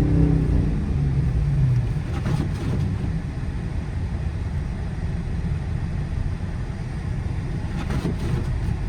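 Dodge Charger R/T's 5.7 Hemi V8 engine running under throttle, its note strongest in the first second or so and then sinking into a steady low rumble as the car pushes through deep snow.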